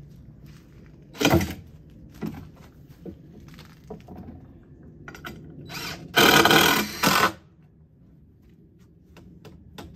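Power drill driving screws into the corner of a wooden raised-bed box: sharp knocks and clicks of the tool and wood being handled, then a drill burst of about a second a little past the middle.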